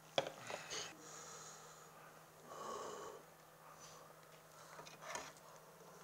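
A person eating hot stew: a few light clicks of spoon and bowl, and a breathy sound over a hot spoonful about two and a half seconds in.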